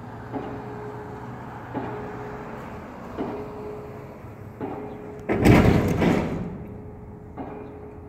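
Distant pile driving at a railroad bridge: regular hammer blows about every second and a half, with a steady ringing tone between them. A louder rushing noise lasting about a second covers one blow a little over five seconds in.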